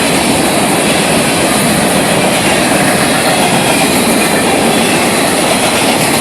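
Florida East Coast Railway freight cars rolling past close by: a loud, steady rush of steel wheels on rail.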